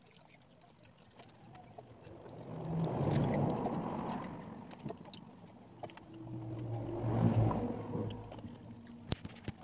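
Two swells of low engine-like rumble, each building and fading over about two seconds, like motor vehicles passing, with faint scattered clicks and smacks of eating throughout.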